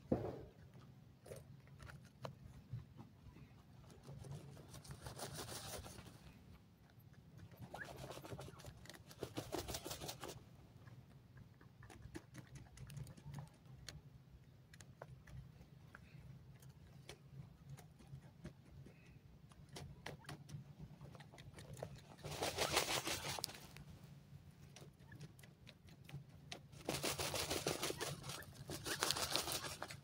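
Grey francolins dust-bathing in dry soil: four bursts of rapid scratching and pattering, each a second or two long, as the birds shuffle their wings and flick loose earth. A low steady hum lies underneath.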